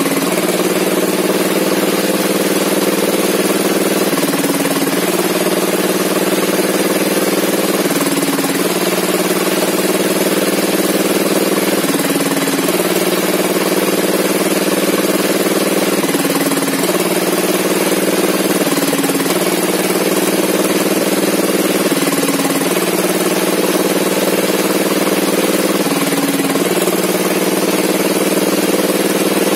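Sawmill engine running steadily, its pitch dropping briefly about every four seconds.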